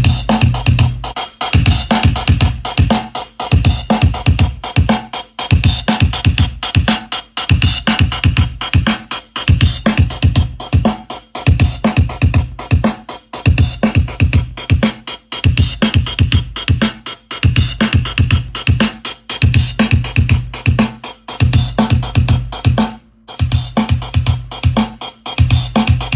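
Electronic music with a drum-machine beat, synthesizer and heavy bass.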